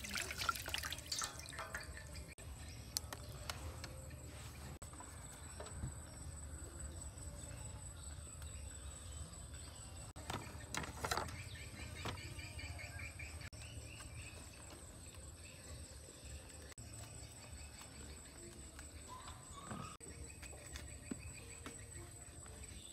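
Water splashing in a steel bowl as fish pieces are washed by hand in the first second or so, then faint outdoor background with a steady high-pitched insect drone, faint chirps and a few scattered small clicks.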